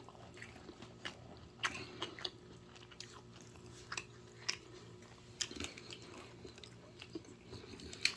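Person biting and chewing pizza close to the microphone, with irregular short mouth clicks and smacks.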